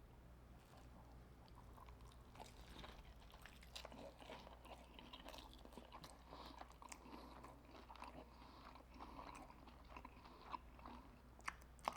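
Faint, irregular crunchy chewing of a battered, fried lobster tail.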